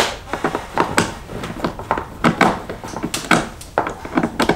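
A hand screwdriver working a T20 Torx screw out of the bottom of a car seat's plastic backrest: a quick, irregular run of short clicks and scrapes as the bit turns and knocks against the plastic.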